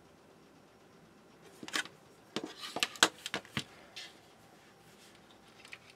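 Handling noise from the opened metal set-top box and a screwdriver: a quick run of clicks and knocks, loudest in the middle, with a few faint ticks near the end.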